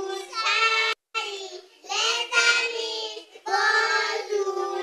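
Young children singing into a microphone, in held phrases with short breaks; the sound cuts out completely for a moment about a second in.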